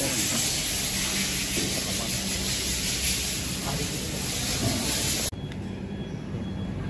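A loud, steady hiss that cuts off suddenly about five seconds in, leaving a quieter low hum.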